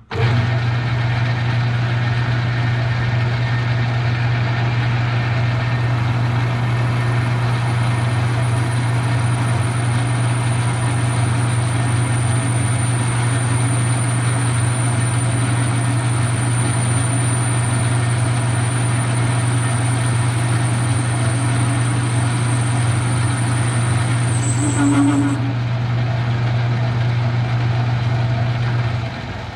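Metal lathe running and turning down a bar stock knob blank, a steady motor hum under the noise of the cut. A thin high whine from the tool runs through most of it and stops a few seconds before the lathe's sound drops away near the end.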